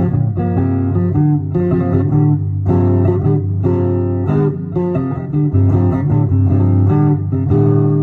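Electric guitar playing a country instrumental break: chords picked in a steady rhythm with notes moving on the low strings beneath them, the last chord left ringing near the end.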